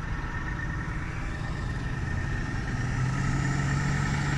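Fire truck's diesel engine running as the truck pulls out slowly with no siren. Its low hum grows louder about three seconds in as the truck comes close.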